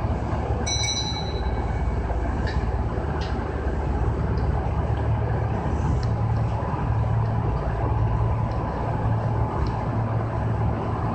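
Cab of a Kintetsu 6020-series electric train at a station: a steady equipment hum, a short high electronic tone about a second in, then a couple of clicks. The low hum grows stronger from about halfway as the train starts to pull away.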